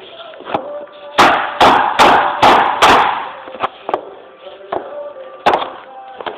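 Laminate floor panels being knocked together with a tapping block: a run of five sharp knocks in quick succession about a second in, then a few lighter, scattered taps.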